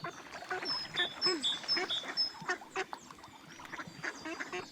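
Ducks quacking in short, overlapping calls, with a small bird's repeated high chirps over them.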